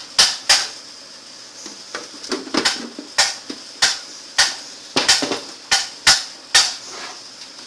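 A dozen or so sharp knocks and clicks at an irregular pace as the small speaker box's case is closed up by hand.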